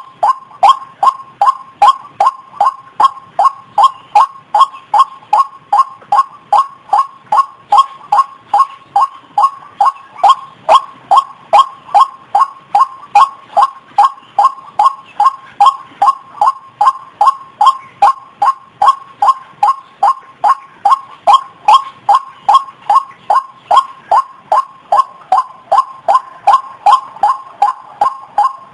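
White-breasted waterhen giving its repeated call: a long, even run of short, loud notes about two and a half a second, with no break.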